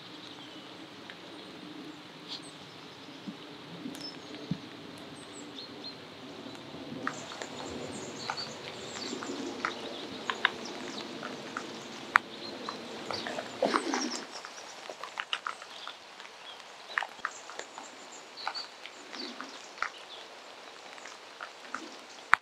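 Wet woodland ambience: birds calling now and then over scattered ticks and taps of rain. A low steady hum underlies it and stops about 14 seconds in.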